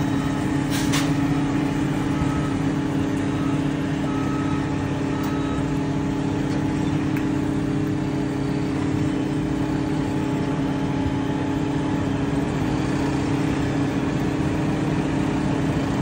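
An engine idling steadily: a constant low, even hum. A few short high beeps sound in the first few seconds.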